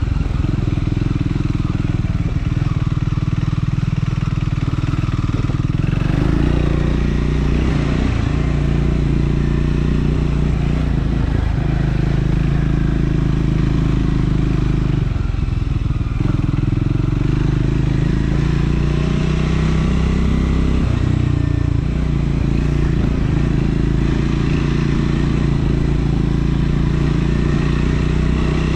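Triumph Scrambler 400 X's single-cylinder engine running while riding, its pitch shifting up and down with the throttle. The engine note drops briefly about fifteen seconds in, then picks up again.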